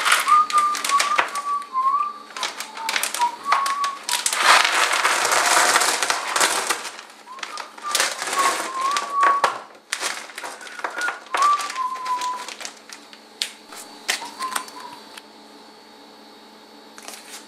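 Loose brass 9 mm cartridges clinking and rattling as they are handled and poured into a plastic storage bag, with the bag crinkling; the busiest rattling and rustling comes a few seconds in. A wavering tune runs over it, and it settles to a quieter steady tone near the end.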